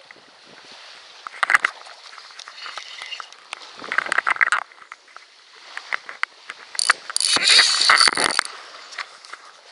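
Bursts of rustling and scraping handling noise with small clicks, the loudest running from about seven to eight and a half seconds in, while mangrove leaves and branches brush close by.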